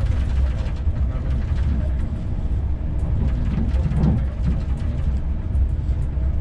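Running noise inside a CP Intercidades passenger carriage in motion: a steady low rumble with light clicks and rattles, and a brief dull knock about four seconds in.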